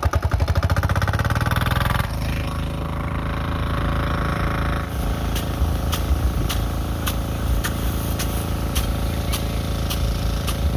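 Small engine-driven portable water pump running, loud and fast-pulsing at first, then settling to a steadier note about two seconds in. From about five seconds in, sharp ticks about twice a second join it, from the swinging impact arm of a rain-gun sprinkler.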